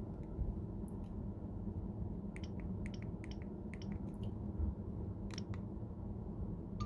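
Keys on a Gigaset cordless phone handset being pressed as the system PIN 0000 is entered: a quick run of small clicks, then a couple more as it is confirmed with OK. A short tone sounds right at the end.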